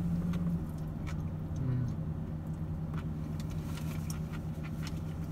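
Steady low hum of a parked car's idling engine heard inside the cabin, with scattered faint clicks of chewing and food wrappers.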